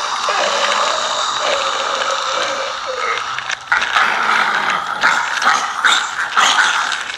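Zombie sound effect: a steady noisy bed, then from about halfway a run of short, loud growls coming every half second or so.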